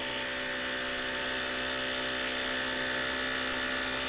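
Bosch GDX18V-1800C 18 V cordless impact driver hammering steadily at full speed, driving a bolt tight.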